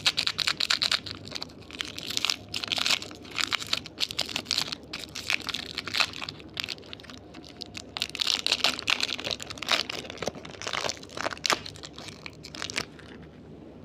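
Candy being handled close to the microphone: dense clusters of crinkling and crunching crackles in uneven bursts, stopping about a second before the end.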